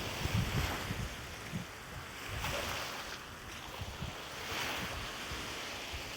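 Wind buffeting the microphone in gusts, over waves washing on a lakeshore that swell and fade every couple of seconds.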